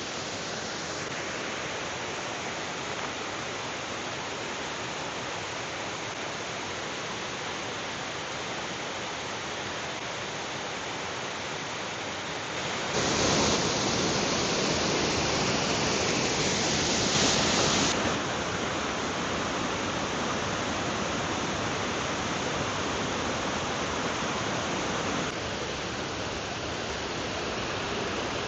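Waterfall rushing: a steady wash of falling water. It grows clearly louder for about five seconds midway, then eases back.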